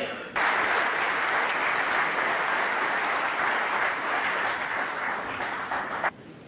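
Audience applauding: dense, even clapping that starts suddenly and cuts off abruptly about six seconds in.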